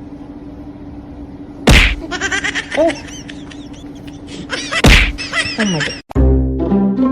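Two loud smacks about three seconds apart, each followed by a quick run of short, high chirping squeaks, over a steady low hum.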